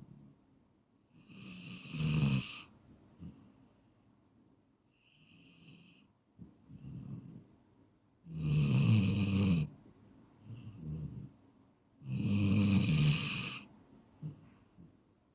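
A person snoring in deep sleep: three loud, low snores, one about two seconds in and two more in the second half. Softer breaths come in between.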